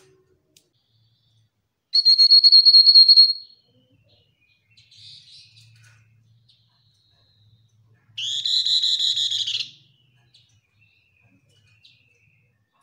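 Pin-striped tit-babbler calling: a high, rapid trill about two seconds in, lasting about a second and a half. A faint call follows, then a fuller, lower rapid trill of about a second and a half near the middle.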